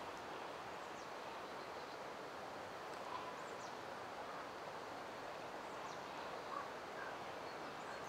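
Faint outdoor ambience: a steady low hiss with a few faint, short, high bird chirps scattered through it.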